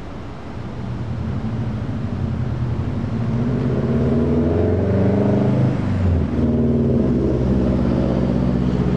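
A car's engine accelerating hard away from a stop and getting louder as it comes close. The pitch climbs, drops briefly at a gear change about six seconds in, then pulls again. The closest car is a Subaru Impreza hatchback with a flat-four engine.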